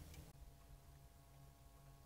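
Near silence: faint room tone with a low steady hum.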